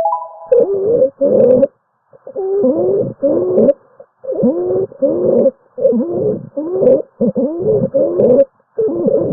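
Recorded abnormal breath sounds, as heard through a stethoscope, starting suddenly. They come as short bursts in pairs, about one pair every two seconds, each burst carrying musical, gliding tones of the wheeze or rhonchus kind.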